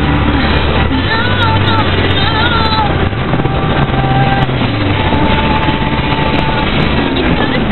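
Steady road and engine noise inside a car cruising at highway speed.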